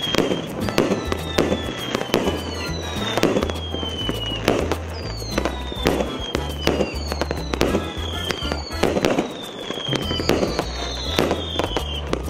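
A 36-shot fireworks cake firing a steady series of shots, each bursting overhead with sharp cracks, about one or two a second. A falling whistle comes roughly every second. Background music with a bass line plays underneath.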